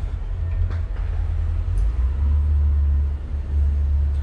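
Detroit Diesel engines of a large Hatteras motor yacht running in reverse at low speed, a steady low rumble that grows louder about halfway through as more throttle is given.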